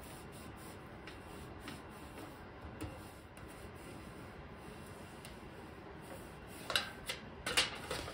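Aluminum foil being pressed and rubbed with fingertips against the edge of a wooden radio cabinet, a soft steady rustling, with a few louder crinkles near the end.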